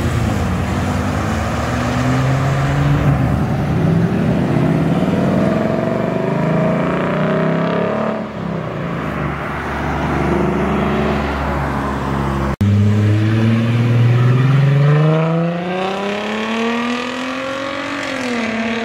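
Car engines revving and accelerating away, their pitch climbing as they pull out. There are two rising runs, with a sudden break between them about twelve and a half seconds in.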